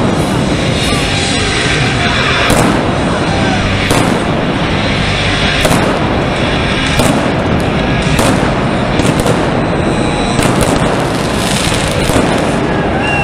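Indoor arena pyrotechnics going off: sharp fireworks bangs every second or so over a continuous loud rush of noise from the flame cannons.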